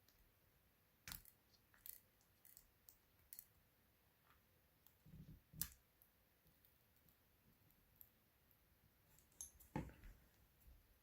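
Faint, scattered clicks and light taps of small repair tools and parts being handled on an opened smartphone, about seven in all, the loudest two a little past halfway and near the end.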